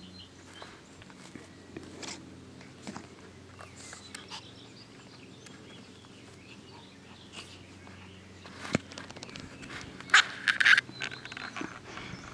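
A Chihuahua playing on a grass lawn, rolling and nosing about, with short scattered rustles and a cluster of louder short noises about ten seconds in.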